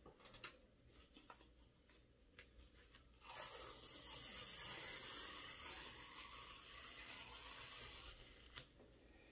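Green painter's tape being peeled off a freshly painted board in one long pull of about five seconds, a steady ripping sound. A few light taps come first as the end is picked loose, and there is a single sharp click near the end.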